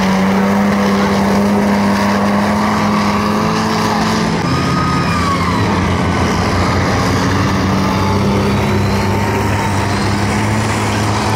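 Engines of Alvis CVR(T) tracked armoured vehicles running at speed across a dirt arena, a loud steady drone whose pitch shifts slightly about four seconds in.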